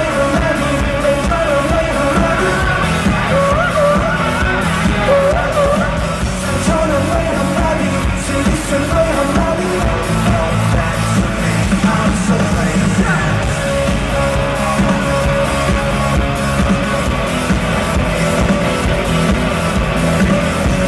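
Live rock band performing a song with singing over drums, bass and electric guitar, loud and steady throughout.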